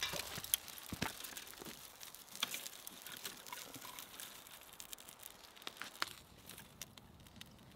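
A small campfire being built up: burning birch bark and kindling crackling while handfuls of dry twigs are laid on, giving irregular sharp crackles and rustling clicks.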